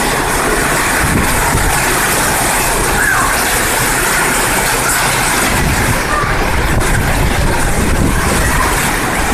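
Heavy rain falling, a steady hiss with street traffic mixed in.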